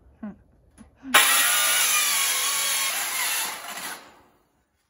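Handheld circular saw cutting through a steel roofing panel. It starts suddenly about a second in, cuts loudly for about three seconds, then winds down and stops.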